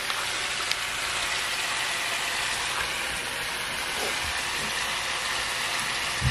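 Steady sizzling hiss of potatoes frying in oil in a pot, with a low hum underneath and a few faint soft taps.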